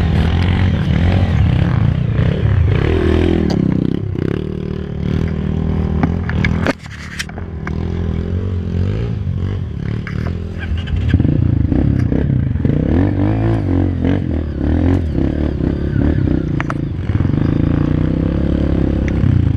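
Enduro trail motorcycle engine running at low speed, its pitch rising and falling as the throttle opens and closes, with scattered knocks and rattles from the bike working over rough ground. The engine sound dips sharply for a moment about seven seconds in.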